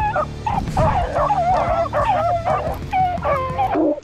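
A pack of rabbit-hunting hounds baying in full cry on a rabbit's trail, several dogs' wavering yelps and howls overlapping.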